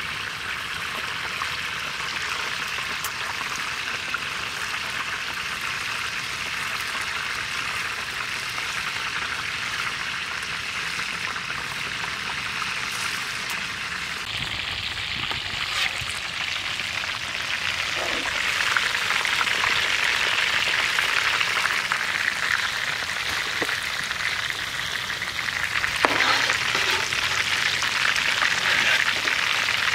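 Whole chickens deep-frying in hot oil in a large iron kadai, a steady sizzle that grows louder a little past the middle, with a couple of brief knocks.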